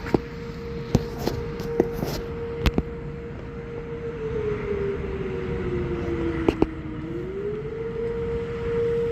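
Outdoor warning siren sounding the attack signal, a wailing tone. It holds steady, slides down in pitch about four seconds in, then swings back up a second later. A few sharp clicks sound over it, most near the start and two close together later on.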